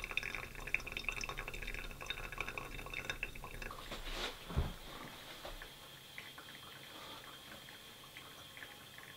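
Hot water seeping through freshly wetted coffee grounds in a pour-over filter cone, a fine crackling fizz with drips, for the first three and a half seconds or so. A soft thump comes at about four and a half seconds, and only faint scattered ticks follow.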